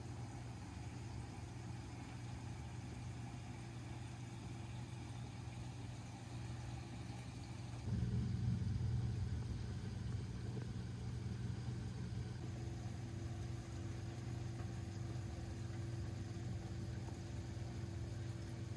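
Saltwater aquarium sump equipment running: the pumps give a steady low hum over water flowing through the sump. The hum grows louder about eight seconds in.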